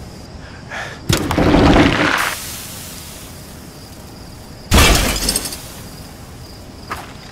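Two sudden loud crashing impacts: the first about a second in, lasting about a second, the second a little under four seconds later and fading off quickly, with a few faint clicks between.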